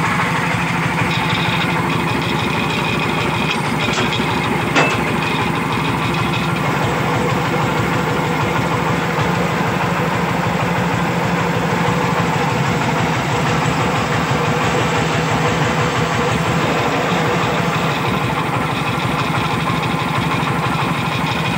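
Single-cylinder horizontal diesel engine of a công nông farm tractor running steadily as it drives, a fast, even chugging. There is one sharp clack about five seconds in.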